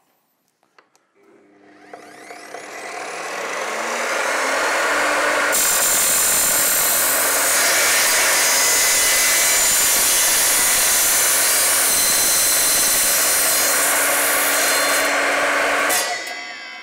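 Evolution R255SMS sliding mitre saw starting up, its blade spinning up with a rising whine. The blade then cuts through an aluminium profile for about ten seconds with a loud, steady, high-pitched cutting noise, which stops abruptly near the end as the cut finishes.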